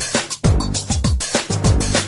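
Background music: an upbeat funk-style track with a steady drum beat and falling bass-drum hits, with a short break about half a second in.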